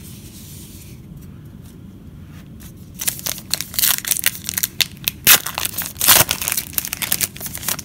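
Foil trading-card pack wrapper being torn open and crinkled. It is a dense, irregular crackling that starts about three seconds in.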